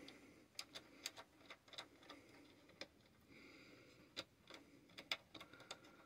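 Faint, irregular small clicks and ticks as the control board of an electric tankless water heater is worked loose from the side tabs holding it in place.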